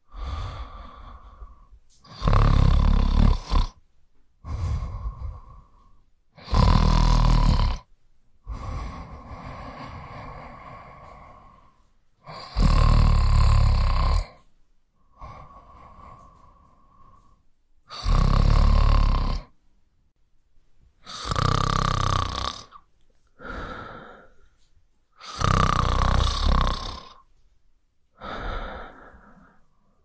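A person snoring in a slow rhythm: six loud snores, one every four to six seconds, each followed by a softer, breathy exhale.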